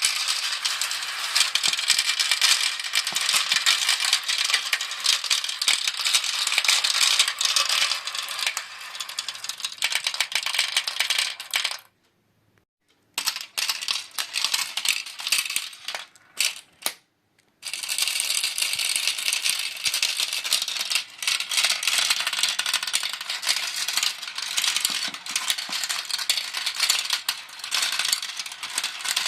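Many marbles rolling and clattering through a plastic marble run, a dense rapid rattle of clicks. It cuts off suddenly about twelve seconds in, with a second of silence and a few scattered clicks, then the dense clatter resumes about six seconds later.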